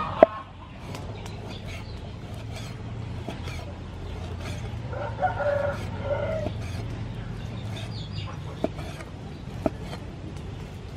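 Cleaver chopping raw beef on a wooden cutting board, a run of sharp knocks a couple of times a second, one of them loud just after the start. A rooster crows once, about five seconds in.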